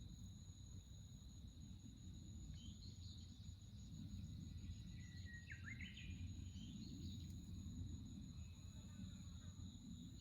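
Quiet forest ambience: a steady high insect trill runs on under a low rumble, while a songbird gives short chirping phrases about three seconds in, around six seconds and again near nine seconds.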